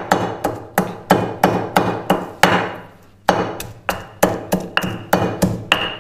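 Marble pestle pounding mint, garlic, ginger and dried pomegranate seeds in a marble mortar, with a steady rhythm of about three dull knocks a second. The pounding pauses briefly a little under halfway through and then resumes.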